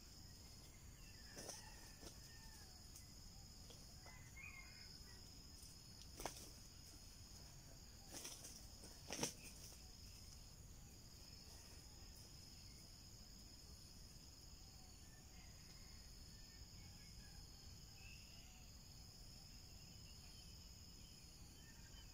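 Steady high-pitched insect drone, with three sharp clicks about six, eight and nine seconds in, the one near nine seconds the loudest.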